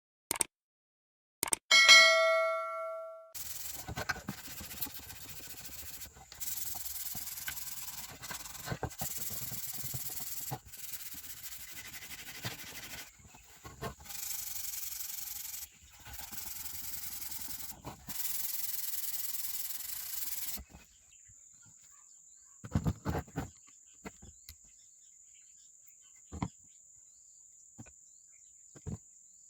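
A metal part gives one ringing ding, followed by a run of sanding or rubbing strokes in stretches of about two seconds each. After about twenty seconds the sanding stops, leaving a faint steady high tone and a few light clicks.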